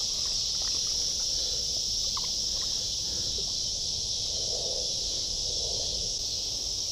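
Steady, high-pitched chorus of insects droning without a break, with a few faint clicks and soft rustles over it.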